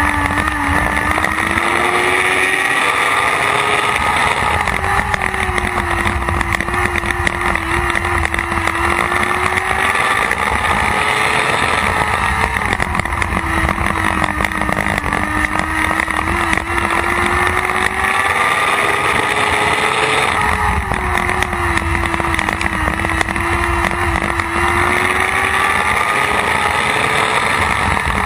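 Lightning sprint car's motorcycle engine at race speed, heard from on board the car. Its pitch climbs and drops in a repeating cycle about every eight seconds as the car goes round the oval lap after lap.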